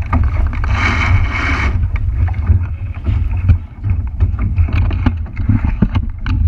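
Wind buffeting the microphone aboard a boat on the water: a steady low rumble. A brief hiss comes about a second in, and scattered knocks follow.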